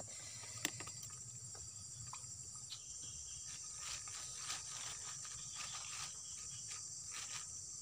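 Steady high-pitched insect chorus, with a sharp click just over half a second in and a few softer ticks later.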